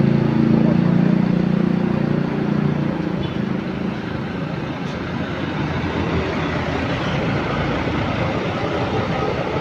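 A bus engine running close by, its low hum fading after about two and a half seconds into steady traffic noise.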